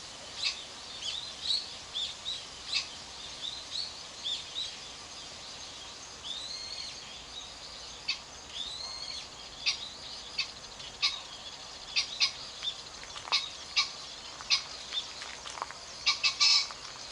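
Small birds chirp repeatedly over the steady rush of a small stream. Near the end a male green pheasant gives its loud, harsh two-note crow.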